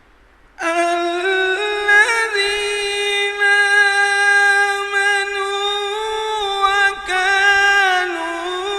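A qari's melodic Quran recitation: a single long-held note that starts about half a second in, with small ornamental turns in the melody and a brief break near the end.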